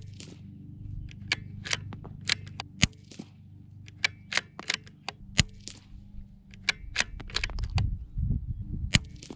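CZ 457 Pro Varmint .22 LR bolt-action rifle firing SK Rifle Match ammunition: three shots a few seconds apart, with the sharp metallic clicks of the bolt being worked between them.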